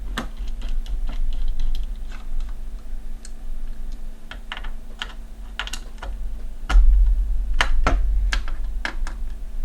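Irregular small clicks and light knocks of a screwdriver and screws being tightened down on a graphics card. A low rumble of handling comes in from about seven to nine seconds in.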